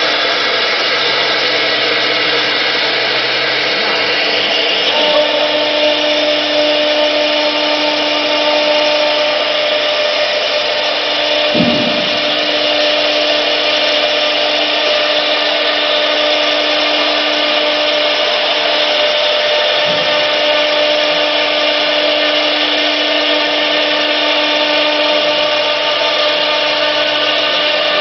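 Multi-spindle CNC router running a job, one spindle cutting small circles out of a sheet: a steady machine noise with a spindle whine, a steady tone joining about five seconds in.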